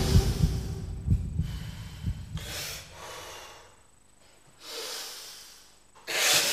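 A man taking sharp, forceful breaths, about four of them a couple of seconds apart, as he concentrates before breaking a stack of concrete blocks with his hand. Background music fades out during the first couple of seconds.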